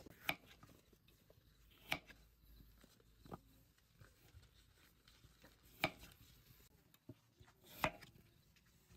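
A large kitchen knife slicing a peeled green vegetable on a round wooden cutting board: five sharp knocks of the blade against the board, spaced about one and a half to two seconds apart.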